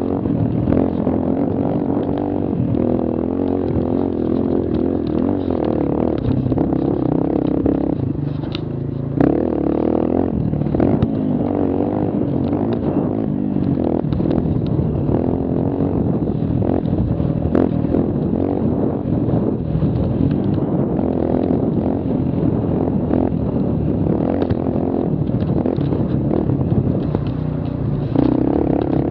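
A mini quad's small engine running under throttle, its pitch rising and falling as it is ridden, easing off briefly about eight seconds in before picking up again. Scattered clattering knocks come from the machine over trail bumps.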